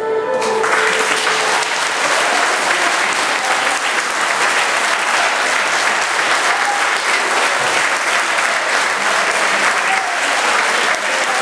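Church congregation applauding steadily, with the held last note of the music fading out about half a second in as the clapping swells.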